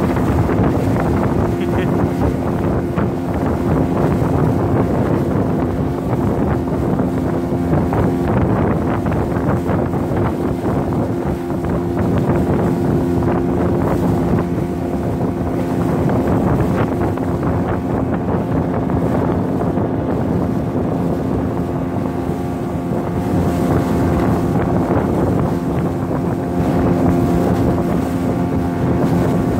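Boat outboard motor running steadily at speed, a constant engine hum, with wind rushing over the microphone.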